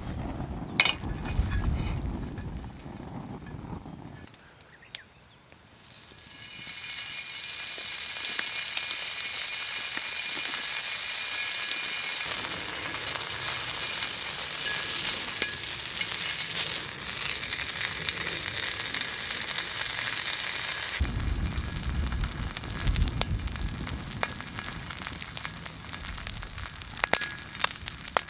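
Food sizzling in a hot multi griddle pan: a steady frying hiss that rises in about six seconds in as it gets going and continues. A low rumble sits under it at the start and again after about twenty seconds.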